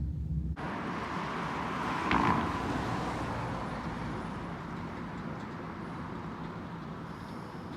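Steady outdoor rushing noise, with a brief louder swell about two seconds in that slowly fades.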